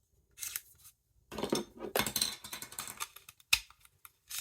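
Handling noise from small plastic gear and cables being moved about on a work surface: irregular scraping and rustling, then a sharp click about three and a half seconds in and a few lighter clicks.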